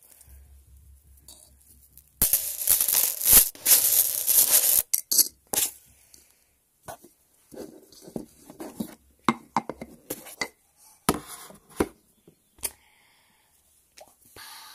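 Small magnets clicking and rattling together in the hands, close to the microphone: a dense stretch of rattling starting about two seconds in, then a string of separate sharp clicks.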